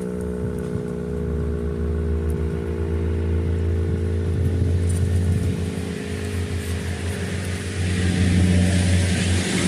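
Sentry 10V outdoor warning siren sounding its steady alert tone, the pitch slowly sagging and fading, over a low rumble.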